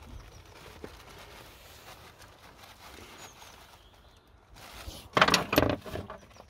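Quiet hand work on the fuel-line fittings of a high-pressure fuel pump, then about five seconds in a burst of metallic clinking and rattling as an open-end wrench is handled against the fittings.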